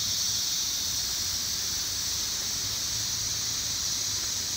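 Steady, high-pitched hiss of a rainforest insect chorus, with the low rush of a nearby waterfall underneath.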